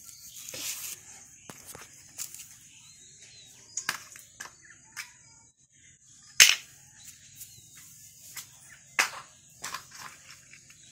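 Large plastic toy building blocks being handled, clacking against each other and the concrete floor in scattered knocks. The loudest knock comes about six and a half seconds in.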